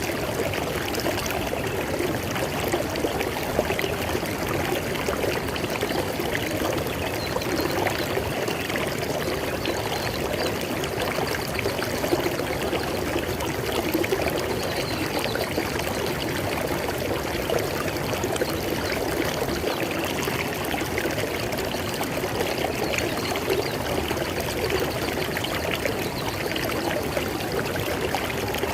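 River water flowing over rocks: a steady splashing, babbling rush.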